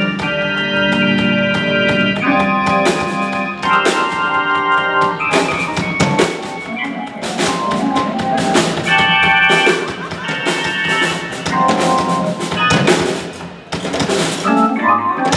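Electronic organ playing a jazzy run of held chords that change every second or two, over a steady drum beat.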